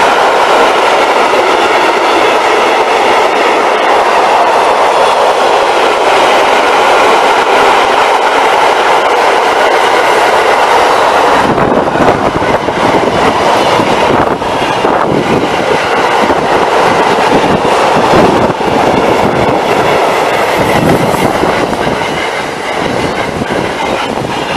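Freight train of double-deck car-carrier wagons rolling past close by: a loud, steady rush of steel wheels on the rails. From about halfway through, the sound gets deeper, with clacking as wheels pass over rail joints.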